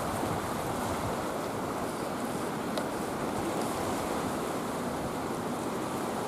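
Typhoon wind and rough surf: a steady rushing noise that holds level throughout.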